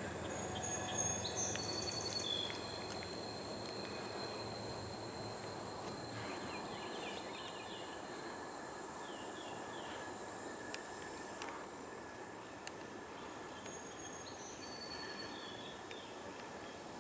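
Outdoor ambience: a steady hiss with a few high chirps and thin whistling tones, and a low rumble that stops about six seconds in.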